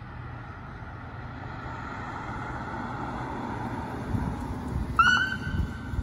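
Police SUV's electronic siren giving one short chirp about five seconds in: a quick upward sweep that holds its pitch for just under a second. Under it, traffic noise grows louder as the vehicle approaches.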